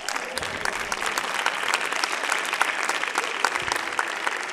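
Theatre audience applauding: many dense hand claps going on steadily.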